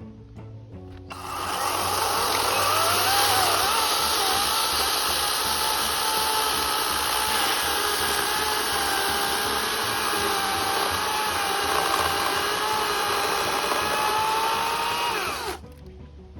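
EGO cordless electric chainsaw starting up about a second in and running with a steady whine that wavers slightly in pitch, then winding down with a falling whine near the end.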